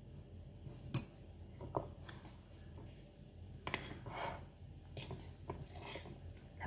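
Metal fork clinking and scraping against a plate while cutting into soft mango, a few separate light clicks over several seconds.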